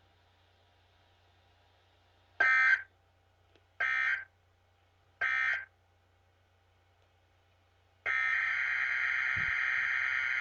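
NOAA Weather Radio EAS/SAME digital data tones: three short buzzing end-of-message bursts about a second and a half apart, which close a test tornado watch. A few seconds later the long, steady data burst of the next alert's SAME header starts and runs to the end.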